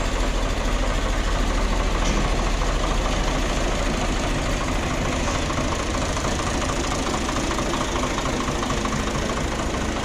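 New Holland Ghazi 65 hp tractor's diesel engine running steadily at low revs, with an even, rapid firing pulse.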